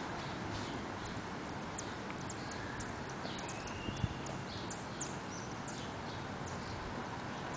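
Steady outdoor background noise with many short, high chirps through the middle, and a single soft knock about four seconds in.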